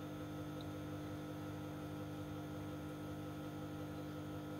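Steady electrical mains hum from the power-amplifier test bench, a low drone with a buzzier overtone that holds unchanged throughout.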